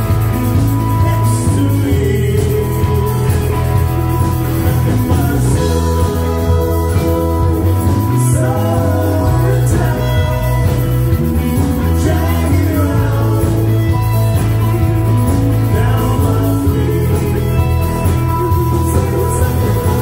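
Live rock band playing a song: two singers over electric guitars and drums, with heavy low notes and a steady, unbroken loudness.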